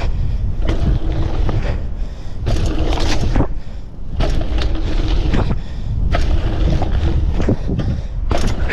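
Mountain bike riding fast through dirt jumps. Wind rushes over the on-bike or helmet microphone and the tyres roll on dirt, with repeated clattering knocks from the bike as it lands and is pumped. A short falling squeal comes right at the end.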